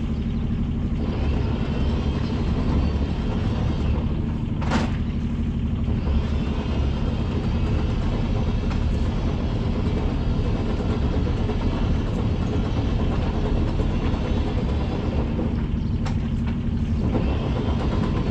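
Sailboat's inboard diesel engine running steadily at low revs under motor, a low rumble heard from the cockpit.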